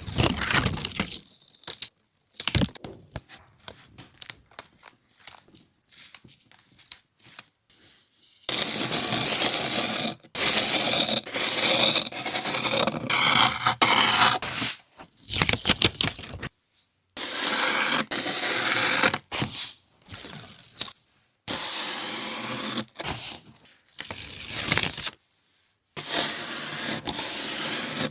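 Packed sand being scraped and crumbled, with a gritty crunching texture. It starts as scattered small crackles, then from about eight seconds in becomes long, loud, continuous scraping passes broken by short pauses.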